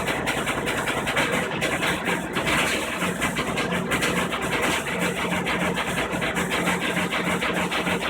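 Samsung WF405 front-load washer in its spin cycle, running loud with a rapid banging throughout and a low hum that pulses about twice a second from about three seconds in. It is an abnormal spin noise that the owner says is not like an unbalanced load, and the machine vibrates with it.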